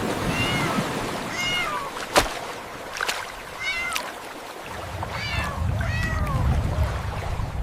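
Kittens meowing over and over: about five high-pitched meows, each bending down in pitch. A sharp click comes about two seconds in, and a low rumble runs under the later meows.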